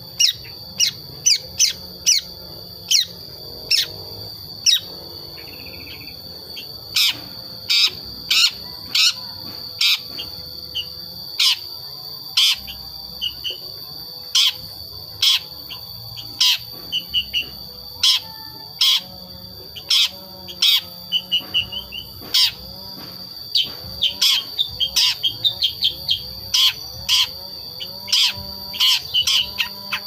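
A young long-tailed shrike (cendet), about five months old, giving short, sharp chattering calls at an irregular pace, running into quicker strings near the end. It is still learning to sing: these are its own natural calls, not yet imitations of other birds. A steady high-pitched tone sits underneath.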